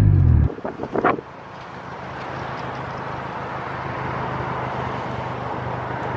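Honda Civic heard from inside the cabin: the engine's revs fall off about half a second in, a few short knocks follow about a second in, then a steady low engine hum with road and wind noise that slowly grows. The car has a rusted, half-missing exhaust with a leak.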